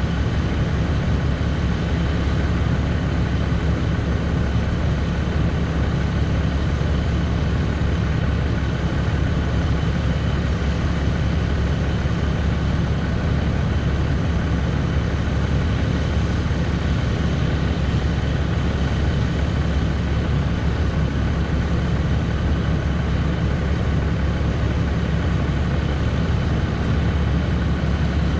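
Ram pickup's Cummins inline-six turbo-diesel idling steadily, a low, even running sound with no change in pace.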